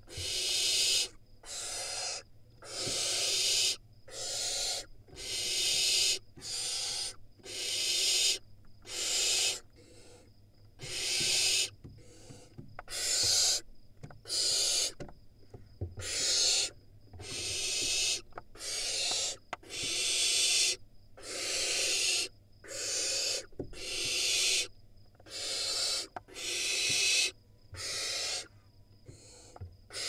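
Barn owl nestlings screaming: harsh, hissing screeches repeated over and over, about one call every second or so, each lasting up to a second, from more than one bird at once. The screams are aimed at a sibling that has reached the nest-box entrance.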